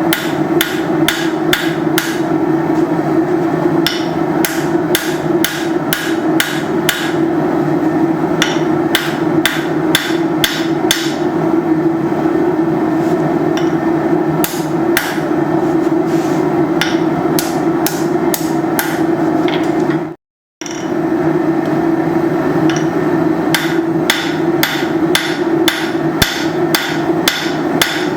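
Blacksmith's hammer striking hot steel bar stock on an anvil in quick, even blows, about three a second, while drawing out a hook, with a steady drone underneath. The hammering breaks off for a split second about two-thirds of the way through.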